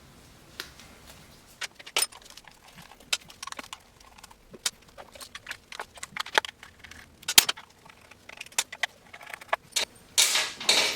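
Irregular metallic clicks and clinks of tools and wire terminals as an electric dirt bike's controller power and phase wires are disconnected, with a louder scraping rustle near the end.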